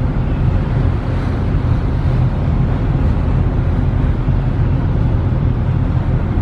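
Steady low rumble of a ferry underway, heard from on board: an even engine drone with rushing noise over it, no breaks or distinct events.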